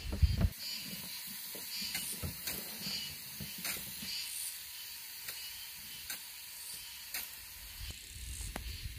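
Steady outdoor hiss with a handful of light, scattered knocks and clicks from a hoe and a plastic bucket being worked in the soil.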